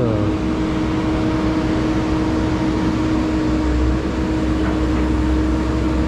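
Heavy-equipment diesel engine running steadily: a constant droning hum over a low rumble.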